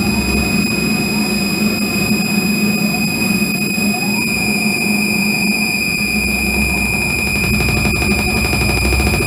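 Theremin played through electronics in a noise performance: a loud, steady high-pitched tone over a low rumbling drone, with a few short rising glides a few seconds in. The high tone shifts slightly about four seconds in, and the low drone drops away for a few seconds midway.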